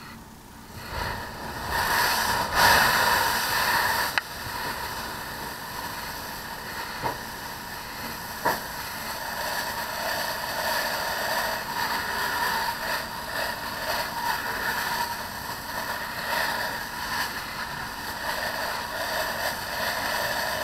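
Fire hose nozzle spraying water onto a burning car: a steady rushing hiss that starts about a second in and swells briefly before settling, with a few sharp clicks along the way.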